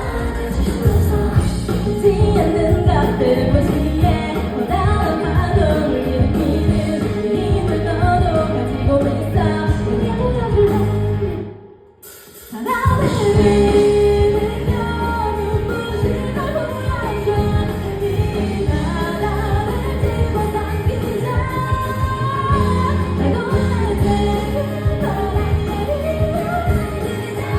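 Live pop song with singing over a loud band backing. About halfway through, the music stops dead for about a second, then comes back in at full level.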